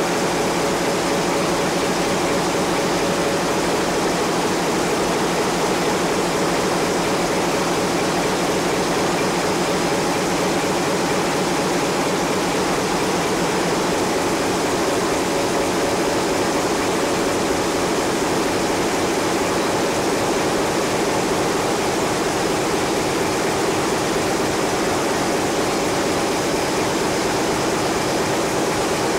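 Ship's engine-room machinery running: a steady, even roar with a few faint steady whining tones over it.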